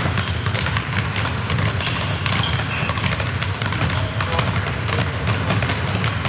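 Many footballs being dribbled at once on a sports hall floor: a dense, irregular patter of ball touches and bounces with running footsteps, echoing in the hall.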